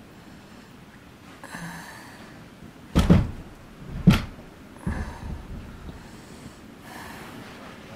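Three heavy thumps about a second apart, the middle one the loudest, with fainter rustling before and after.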